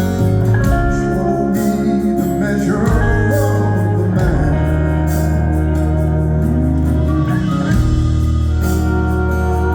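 A live rock band playing an instrumental passage, with guitars, bass and drums.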